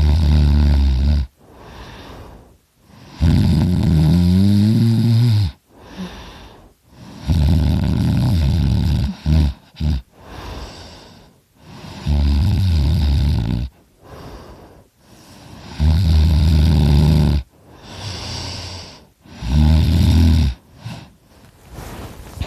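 A man snoring very loudly through an open mouth, the sound made by his uvula vibrating. There are six loud, low, rattling snores about every four seconds, each lasting a second or two, with a softer breath between them; one snore about four seconds in rises in pitch.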